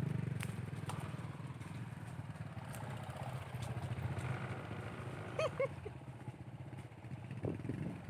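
Motorcycle engine running at steady low revs, a little quieter after the first second or so, with a brief high chirp about five and a half seconds in.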